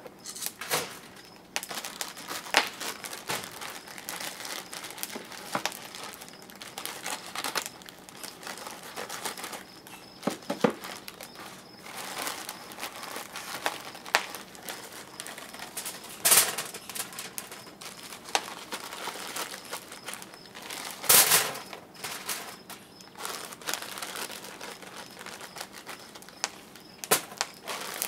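Wood fire crackling in the firebox of a wood-fired pottery kiln: a steady hiss with irregular snaps, and a few louder pops, the loudest about three-quarters of the way in.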